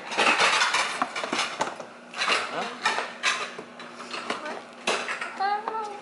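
Irregular plastic clacks and knocks from a kids' electric ride-on toy car being handled, as its door is worked to open it.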